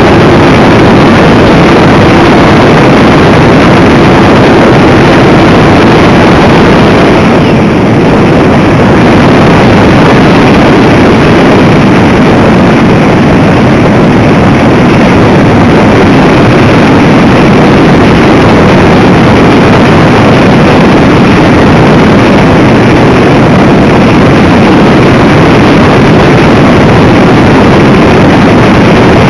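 Radio-controlled model plane in flight, heard from a camera mounted on it: its motor running with rushing air noise, very loud and overloaded. A steady hum under the noise fades after about six seconds.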